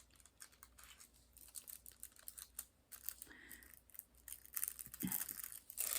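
Faint irregular small clicks and light crinkling of plastic as diamond painting drills are pressed onto a canvas and its cover film is handled.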